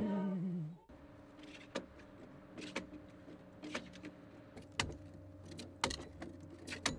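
A man's chanting voice slides down in pitch and stops about a second in. Then come sharp chopping blows of an axe biting into a red cedar log, about one a second, over a faint steady hum.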